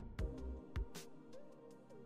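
Background music with a steady beat of low kick-drum thumps and sharp hits over held chords.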